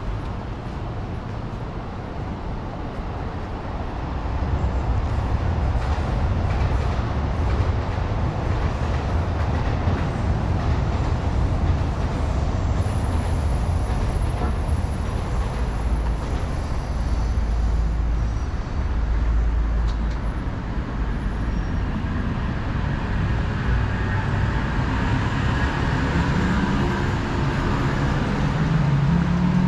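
Steady low rumble of passing city traffic, growing louder about four seconds in, with a faint high whine from about 13 to 21 seconds in.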